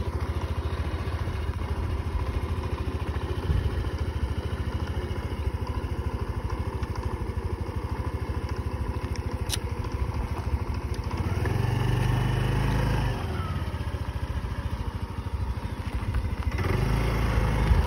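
Motor scooter engine idling steadily, revving up and back down briefly about twelve seconds in, and picking up again near the end.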